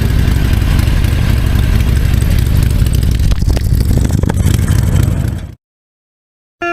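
Motorcycle engine running with a loud, steady low rumble and noise spread across the range, which fades out about five seconds in. A second of silence follows, then guitar music begins right at the end.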